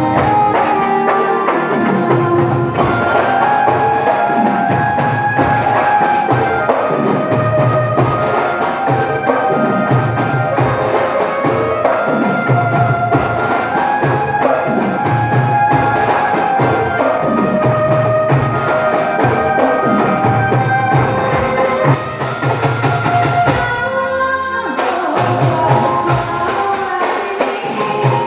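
Instrumental music: a bansuri (bamboo flute) melody of held, sliding notes over a steady drum beat. The drums drop out briefly about 24 seconds in.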